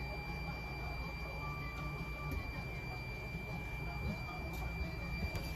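A steady, high-pitched electronic tone, held unbroken at one pitch over a low background rumble.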